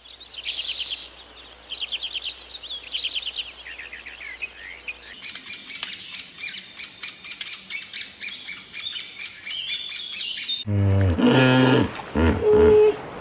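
Small birds chirping and trilling in fast high notes, with a second, denser bout of chirping starting about five seconds in. Near the end, loud bleating calls break in.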